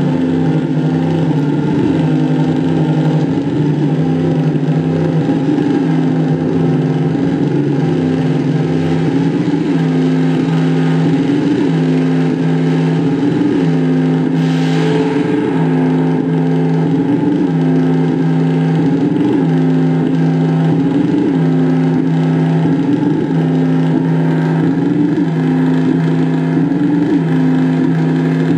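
Live electronic noise music from a rig of effects pedals and a mixer: a loud, steady low drone of two held tones that wavers in a regular pulse, with a brief burst of hiss about halfway through.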